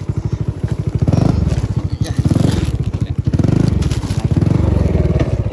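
Small engine running with a rapid, even pulse, growing louder in several swells.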